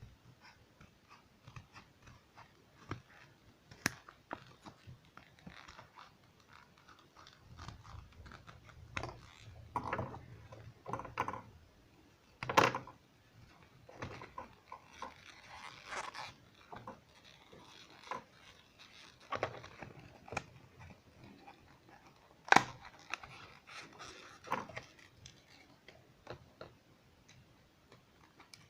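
Irregular small clicks, taps and crinkling from small objects being handled, with two sharper clicks, about halfway through and again near the end.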